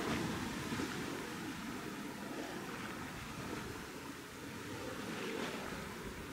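Steady outdoor ambience of wind and the sea washing on the shore, a low even rush with no distinct events.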